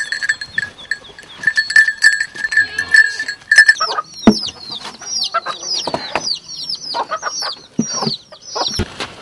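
Farmyard poultry calling: a high, slightly pulsing call for the first few seconds, then a run of short falling peeps. A sharp knock comes about four seconds in.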